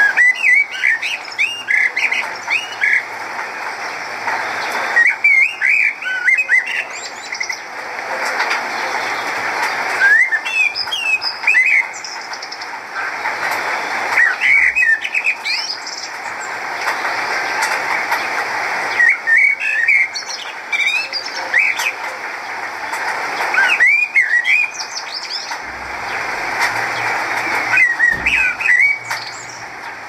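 Recorded song of a common blackbird: short warbled phrases of quick rising and falling whistled notes, one every four to five seconds, over a steady background hiss.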